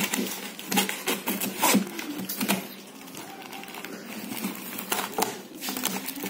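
Knife blade cutting along plastic packing tape on a cardboard box: short, irregular scratchy strokes and clicks as the blade slits the tape and scrapes the cardboard, busiest in the first couple of seconds and again about five seconds in.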